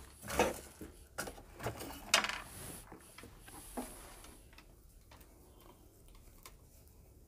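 Faint scattered clicks and rustles of hands handling folded fabric pieces at a stopped electric sewing machine, the strongest click about two seconds in, dying away in the last few seconds.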